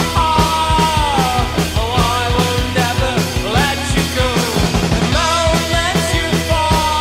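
Rock music with a steady driving beat, a fast guitar-driven punk-rock style with a voice or lead line gliding over it.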